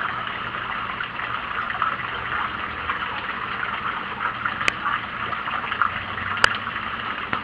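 Steady crackling hiss from the hot rocket-stove cooktop in an old charcoal grill, with two sharp pops about four and a half and six and a half seconds in.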